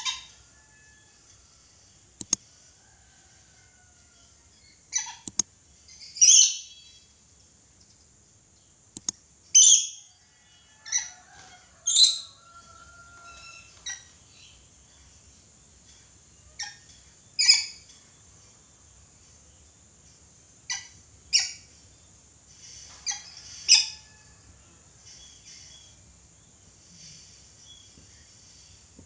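Red lory giving short, shrill calls at irregular intervals, about a dozen through the stretch, some in quick pairs, with a few sharp clicks in between.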